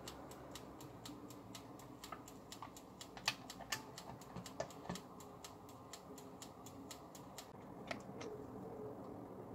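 Mechanical timer dial of an electric bungeoppang (fish-shaped waffle) maker ticking steadily, about five ticks a second, with a couple of louder clacks about three seconds in as the plastic lid is lowered and closed. The ticking stops near the end.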